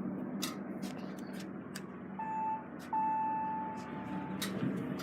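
An elevator's electronic beeper sounding twice, a short beep and then a longer one lasting about a second and a half, over a steady low hum and a few scattered clicks.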